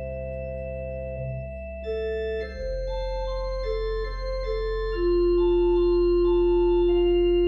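Organ playing slow sustained chords over a held bass note, the chord changing about two and a half seconds in, with a melody stepping between notes and then holding one long, louder note from about five seconds in.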